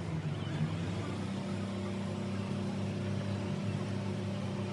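A motor or engine running steadily with an even low hum, settling to a constant speed about a second in.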